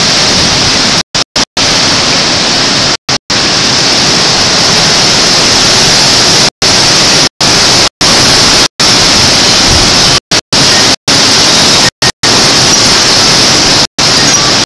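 Hurricane-force wind from a microburst blowing hard over the camcorder's microphone: a loud, steady, hissing rush of wind. The sound cuts out completely for split seconds about fifteen times.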